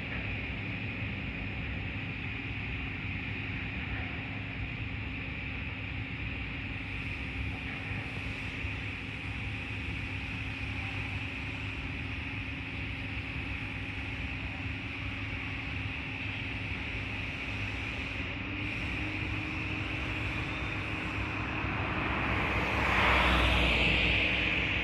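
Steady outdoor traffic hum, with a vehicle passing close and growing louder toward the end, peaking shortly before the end.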